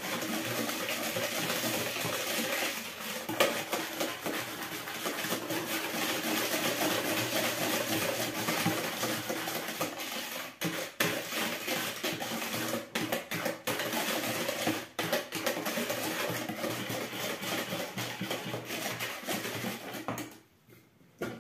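Hand wire whisk beating pancake batter in a plastic bowl: a fast, continuous clatter of wire against plastic that stops about a second before the end.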